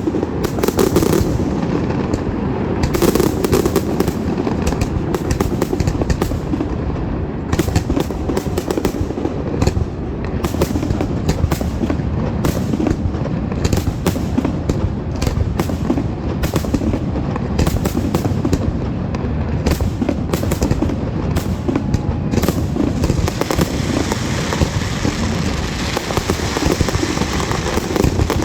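Fireworks going off in a rapid, continuous barrage: many sharp cracks and pops over a steady low rumble of bursts.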